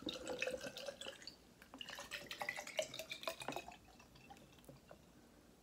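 Drink being poured from a plastic bottle into a glass of ice, the liquid trickling and splashing with small clinks of ice against the glass. The sounds thin out after about three and a half seconds.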